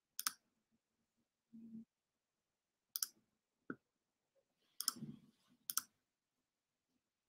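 A handful of sharp, short clicks from working a computer, spaced irregularly a second or two apart, over a quiet room.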